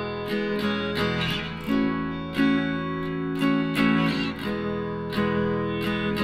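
Background music: strummed acoustic guitar playing a steady, rhythmic accompaniment.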